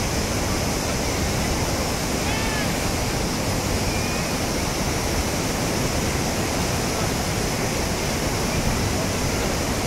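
Muddy flash-flood torrent rushing through a wadi: a steady, unbroken noise of churning water.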